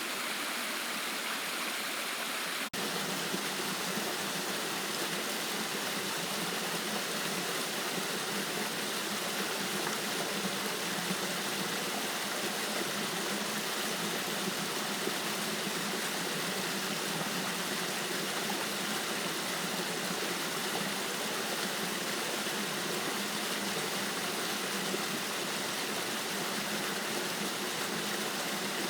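Creek water rushing steadily over small waterfalls, a continuous even rush. About three seconds in it breaks for an instant and resumes slightly deeper.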